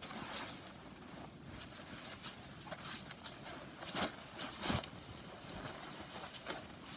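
Irregular crunching steps in snow over a faint hiss, with the loudest crunches about four seconds in and just before five seconds.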